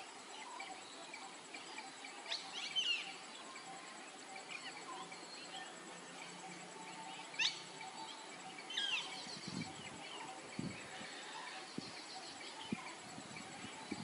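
Wild birds calling in the background with short sharp chirps and whistles, loudest about three seconds in and twice more around the middle, over a faint steady insect hum. A few low thumps come in the second half.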